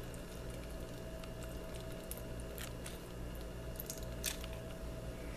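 Half a lemon squeezed by hand over a mixing bowl: a few faint wet clicks and crackles from the fruit, over a steady low hum.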